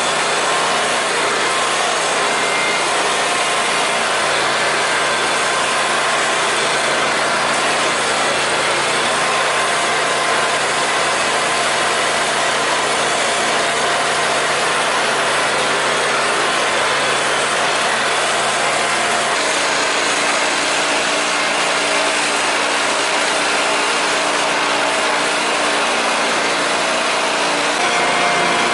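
Simplicity garden tractor driving along with its engine running steadily.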